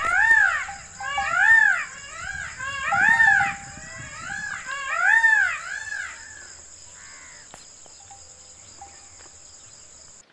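Indian peafowl calling: a quick series of rising-and-falling calls, loudest in the first six seconds and then dying away. A steady high insect buzz runs underneath.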